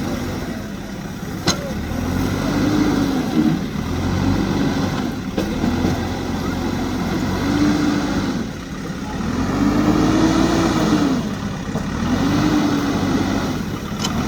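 JCB backhoe loader's diesel engine working under hydraulic load, its pitch rising and falling every couple of seconds as the digging arm cycles. There is a sharp knock about a second and a half in and another near the end.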